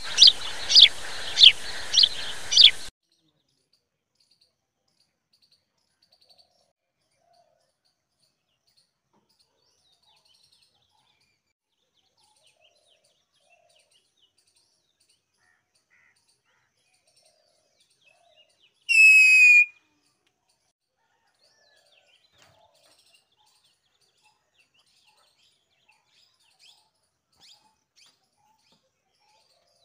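A short intro of five sharp, falling chirps over a hiss, then near silence broken by one loud, harsh parakeet screech about a second long, roughly two-thirds of the way in.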